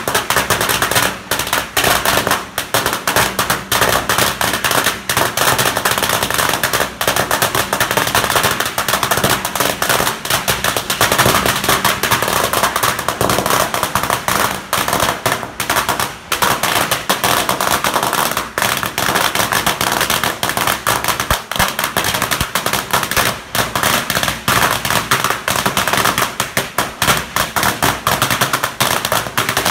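Strings of firecrackers going off in a rapid, unbroken crackle of sharp bangs.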